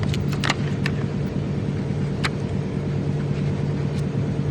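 A steady, even engine hum, like a vehicle idling, with a few sharp clicks and taps from a torque wrench being handled: a cluster in the first second, one more just past midway and one near the end.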